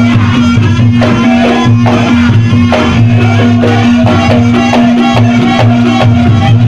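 Loud Reog Ponorogo accompaniment music: traditional Javanese percussion pulsing under a steady held tone, with a wavering melody line above.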